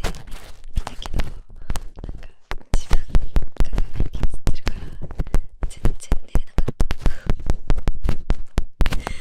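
Close-miked ASMR tapping, scratching and rubbing on a daruma: a dense, fast run of sharp clicks and scrapes with deep thumps, pausing briefly about two and a half seconds in.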